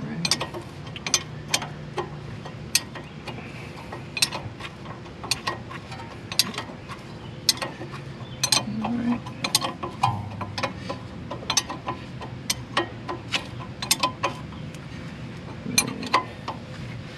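Hand socket ratchet clicking in steady, even strokes, about two clicks a second, as the brake caliper bolts are run in.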